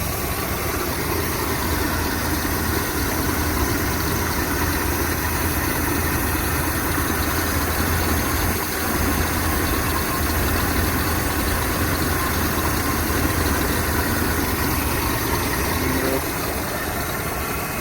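1973 Chevrolet Impala's 350 (5.7 L) Chevrolet V8, fed by a two-barrel carburettor, idling steadily.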